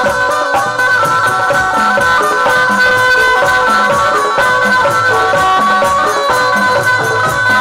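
Instrumental stretch of a Hindu devotional folk song (devi jas bhajan): a dholak drum beats a steady folk rhythm under held melody notes, with a constant jingling percussion.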